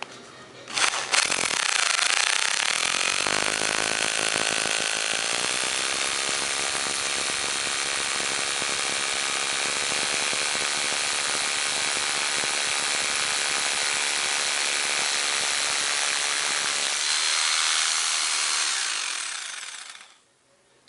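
Einhell TH-RH 800E electric rotary hammer drilling into stone. Its motor starts about a second in and rises to speed, then runs steadily through the stone. Near the end it winds down and stops.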